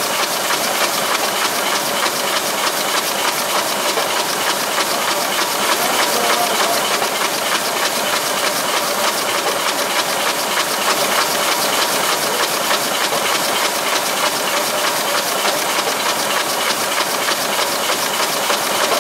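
Komori Lithrone S40 sheetfed offset press running at speed, heard from inside its feeder: a steady, fast mechanical clatter with a hiss over it.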